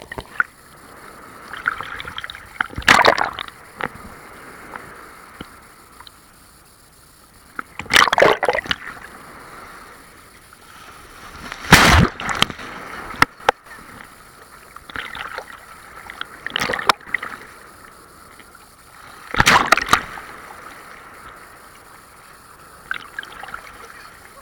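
Large sea waves breaking and splashing close by, with a loud rush of water about five times, every four seconds or so, and a steady wash of surf in between.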